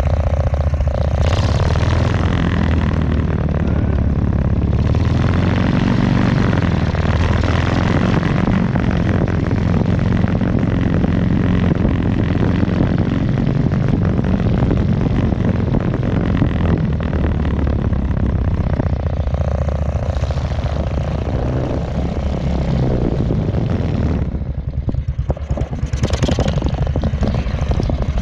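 Two-wheel walking tractor's engine running steadily as the machine drives across grass, its pitch shifting a little with the load. Near the end the sound drops and wavers briefly before picking up again.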